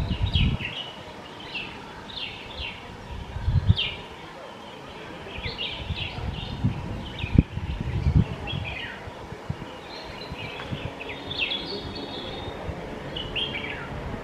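Red-whiskered bulbul calling: a string of short, quick chirps and warbled notes, repeated over and over. A few dull low thumps come through too, the loudest about four and about seven seconds in.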